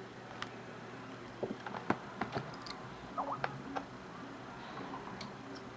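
Small screwdriver turning a screw out of a laptop's bottom cover: scattered light clicks and ticks, with a brief squeak about three seconds in.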